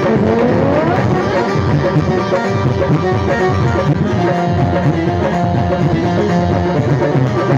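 Instrumental music of a live devotional bhajan band: keyboard melody over a steady, rhythmic tabla and drum beat, with a rising glide in the melody about half a second in.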